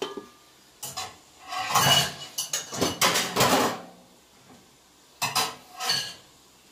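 A domed stainless steel lid being put on a steel wok, with metal clattering and scraping on metal in several short bursts; the loudest come in the first four seconds, and two shorter ones follow a little after five seconds.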